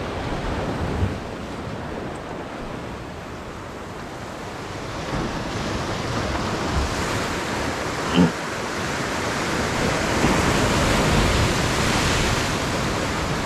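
Ocean surf breaking and washing over lava rocks below, with wind buffeting the microphone; the wash swells louder in the last few seconds. A short, sharp sound stands out about two-thirds of the way through.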